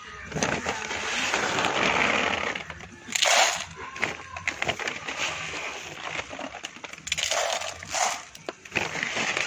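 Grain being poured into a metal feeder trough: a pattering, rattling rush of seed, with a few sharper short rushes about three seconds in and again near the end.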